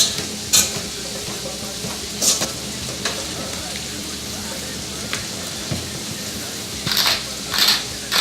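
Steady sizzle of lamb cubes and diced vegetables frying in a pan, with a few brief sharper noises, two of them close together near the end.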